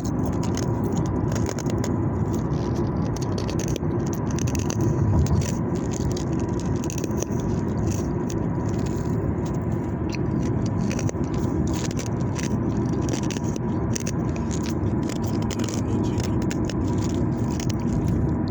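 Ice being chewed close up: rapid, irregular crunching and crackling, over a steady low rumble.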